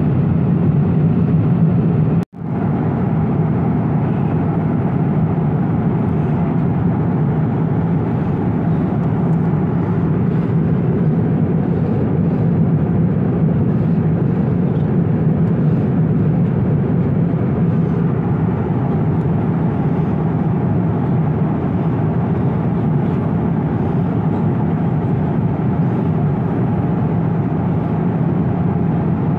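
Steady cabin noise of a jet airliner in cruise: an even engine and airflow rumble and hiss. It cuts out for an instant about two seconds in, then carries on unchanged.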